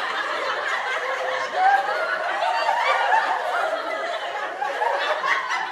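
Many voices laughing and giggling at once, overlapping in a continuous jumble.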